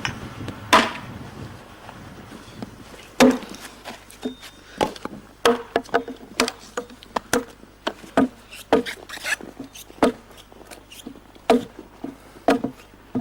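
A series of irregular sharp knocks and clicks, about a dozen spread over several seconds.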